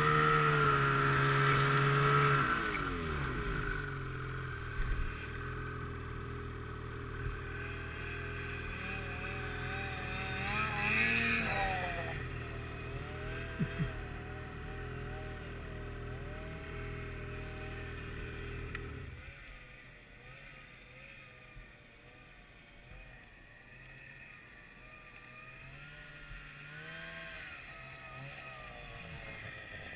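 Snowmobile engine easing off from speed to a steady idle, then shut off abruptly about two-thirds of the way through. A second snowmobile's engine is heard approaching, its pitch rising and falling with the throttle and growing louder near the end.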